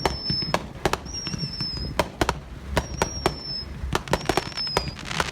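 A Brothers consumer aerial finale set, several 48-shot cakes lit together, firing a rapid, irregular barrage of launch thumps and shell-break cracks, several a second. Short high whistles recur about once a second through the barrage.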